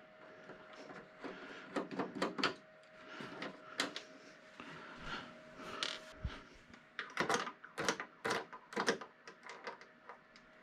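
Irregular clicks, taps and light clatter of screws being undone from a flat-screen TV's plastic back cover with a screwdriver and set down, in short bunches about two seconds in and again near the end.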